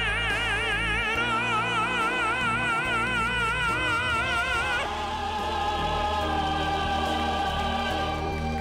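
Operatic tenor voice holding a high note with wide vibrato over sustained instrumental accompaniment; the voice breaks off about five seconds in while the accompaniment holds its chord.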